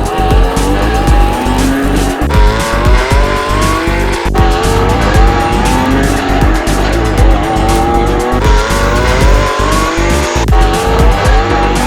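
Race-car engine sound effect revving up in repeated rising sweeps, like climbing through the gears, over a beat-maker music track with a steady beat.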